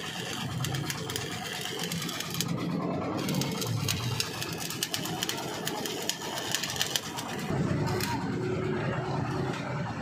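Stick welding arc crackling and sputtering as an electrode lays a bead on the steel frame of a concrete mixer; the crackle stops about eight seconds in.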